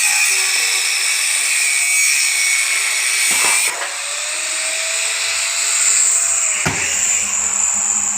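A power saw running steadily, cutting into coconut palm wood. A sharp knock comes about six and a half seconds in.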